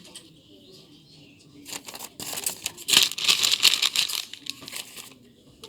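Gift wrapping or packaging crinkling and tearing as it is pulled open: a dense crackly rustle that starts a little under two seconds in, is loudest around the middle, and stops shortly before the end.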